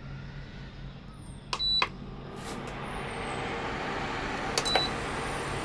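Omi induction cooker beeping as its touch buttons are pressed, a double beep about a second and a half in and another near the end, while its cooling fan starts up and runs with a steady rushing sound that grows louder over the first few seconds.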